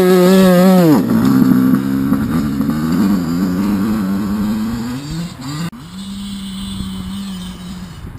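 Yamaha YZ85's 85cc two-stroke single-cylinder engine, held at high revs for about a second, then dropping back. It climbs again and breaks off suddenly a little past halfway, then runs steadily at lower revs.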